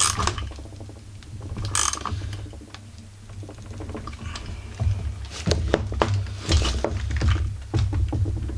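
Ratcheting combination wrench clicking in irregular short runs, with knocks and handling of metal parts on a small two-stroke chainsaw. The clicks come sparsely at first and bunch up in the second half.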